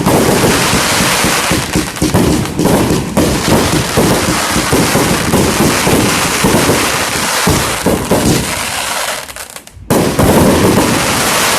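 Fireworks going off in a rapid, continuous crackle of bangs, cutting out briefly near the end and then starting again.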